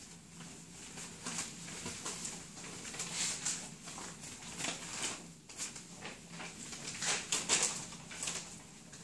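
Five-and-a-half-week-old puppies playing and wrestling: irregular scuffling and scratching of small claws and paws on a hard floor, with toys and bedding being knocked about. It grows busier a few seconds in and is loudest near the end.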